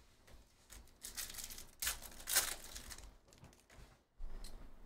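A stack of glossy Topps Chrome baseball cards being flipped through by hand, the cards sliding against each other in a few short rustles.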